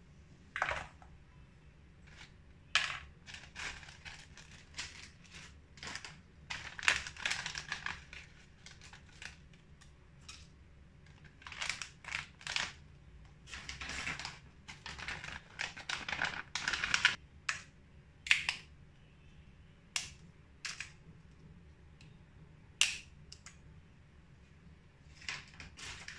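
Intermittent kitchen prep handling sounds: a cleaver scraping chopped garlic across a wooden chopping board into a stainless-steel bowl, and dried spices such as bay leaves being dropped in. These come as scattered sharp clicks and taps with longer rustling stretches.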